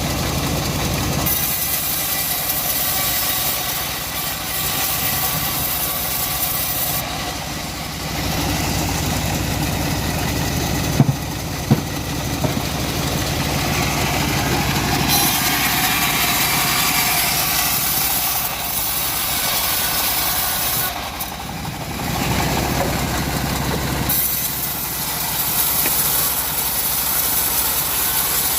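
Band sawmill running steadily while it saws timber, a high hiss coming and going over the machine's drone. Two sharp knocks about eleven seconds in.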